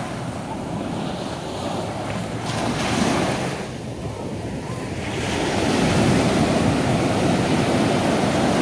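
Ocean surf breaking and washing up a sandy beach, a steady rushing that swells briefly about three seconds in and grows louder from just past halfway as a wave breaks close to shore.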